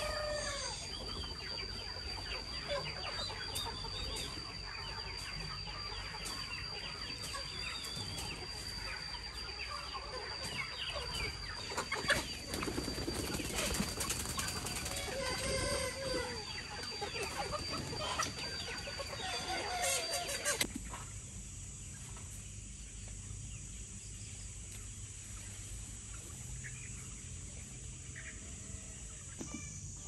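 A flock of free-range chickens clucking, with roosters crowing now and then. A steady high thin tone runs under it until about two-thirds of the way through, when the sound suddenly drops quieter and the calls thin out.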